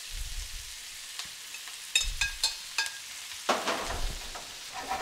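Sliced Brussels sprouts being tipped into a sauté pan of frying bacon and red onion, sizzling steadily. A metal spoon clinks against the bowl and pan several times about two seconds in, then scrapes and stirs the sprouts through the hot fat.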